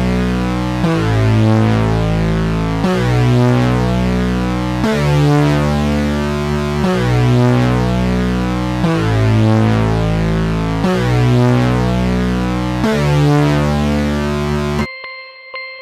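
Synthesizer music: loud, sustained chords over a heavy bass, changing about every two seconds. Near the end it cuts off abruptly and gives way to thin, high ringing tones.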